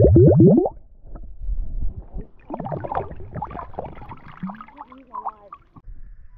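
Small glass flask filling underwater: a quick run of rising glugs as air escapes through its neck, stopping about a second in. Then quieter splashing and trickling as water is poured from the flask into a lake.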